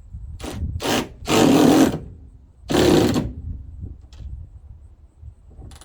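Hand ratchet clicking in a few short strokes, tightening the T50 Torx bolt on the Ford Maverick tailgate's top cable mount, the two longest strokes loudest, over a low wind rumble.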